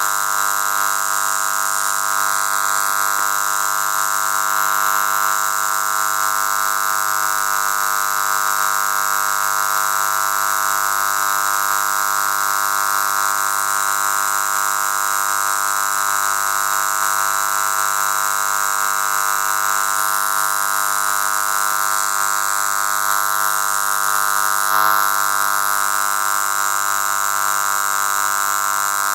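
A steady, unchanging buzz with many evenly spaced overtones, played through a phone's FM radio tuned to Radio Trinitas on 93.7 MHz. It is the station's sound problem: a buzz on air in place of programme.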